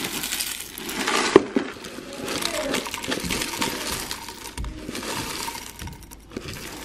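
Dry granola cereal poured into a bowl in two pours, first a light granola with flakes, then a cocoa granola: a dense rattling patter of clusters hitting the bowl, with one sharper clink about a second and a half in.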